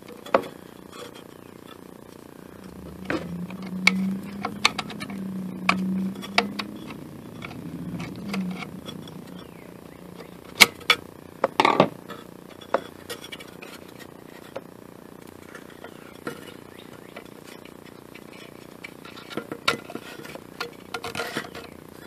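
Scattered light clicks and knocks of hands working at the pull cord's knot in a lawn mower's plastic recoil starter pulley. A low steady hum runs for about five seconds starting a few seconds in, and a louder brief sound comes about twelve seconds in.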